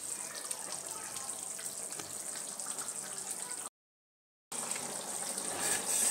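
Tomato-onion gravy with lauki koftas simmering in a steel kadhai on a gas stove: a steady bubbling hiss of the cooking gravy. It cuts out completely for under a second just past halfway.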